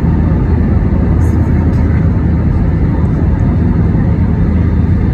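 Airbus A320's IAE V2527-A5 turbofan engines running at reduced (flex) takeoff thrust in the initial climb, heard inside the cabin over the wing: a loud, steady, deep roar.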